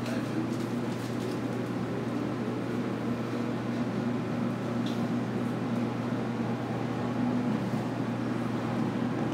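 JR Kyushu 811 series electric train running between stations, heard from inside the carriage: a steady rumble and hum, with a faint rising whine in the first few seconds.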